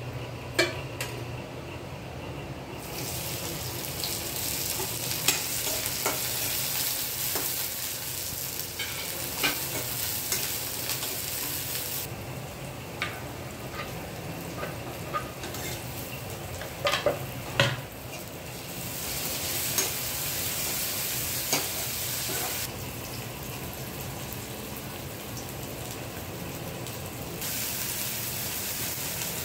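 Chopped spring onions sizzling and frying in hot oil in a kadhai. The sizzle grows louder about three seconds in. A spatula scrapes and clicks against the pan again and again as the onions are stirred.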